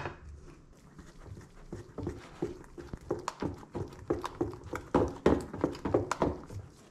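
A liquid mixture beaten by hand in a stainless steel bowl: quick rhythmic strokes with wet slaps and clinks against the metal, about four a second, starting a couple of seconds in and getting louder before stopping near the end. A single sharp click at the very start.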